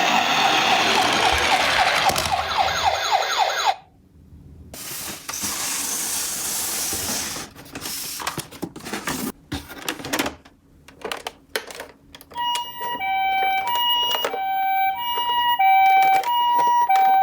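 Toy ambulance mini-car sirens. First an electronic siren warbles and speeds into a rapid yelp, then cuts off abruptly about four seconds in. After a stretch of hiss and scattered clicks and knocks, a high-low two-tone electronic siren starts alternating about two-thirds of the way through, the Japanese ambulance "pee-po" pattern.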